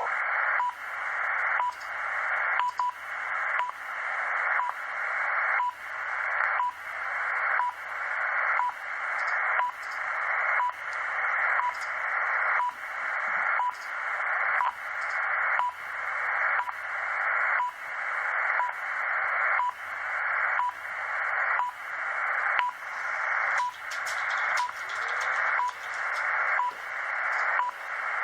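Shortwave time-signal transmission received on a WebSDR: a short tick every second, each followed by a swish of hissing noise that grows louder until the next tick.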